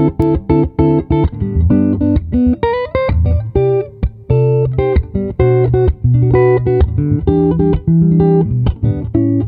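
Solo acoustic guitar: quick runs of plucked single notes mixed with chords and low bass notes, several notes a second.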